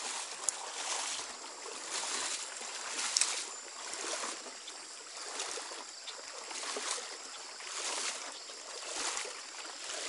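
Stream water running: a steady rushing hiss that swells about once a second, with a few faint clicks.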